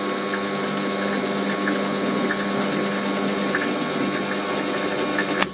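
Warco WM180 mini lathe running in reverse with the half nut engaged, winding the carriage back along the freshly cut thread without cutting: a steady whine of motor and gears with a few faint ticks. It stops suddenly near the end.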